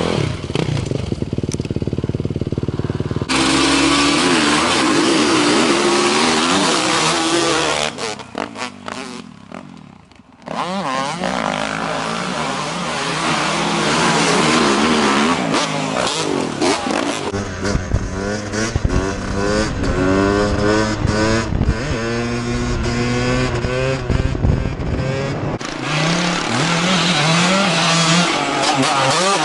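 Dirt bike engines revving hard and accelerating through corners, the pitch rising and falling with throttle and gear changes. The sound switches abruptly between different bikes several times.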